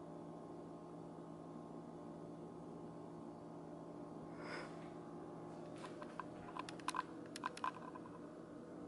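Quiet room with a steady low hum; a soft rustle about four and a half seconds in, then a quick run of about eight light clicks and taps over the next couple of seconds.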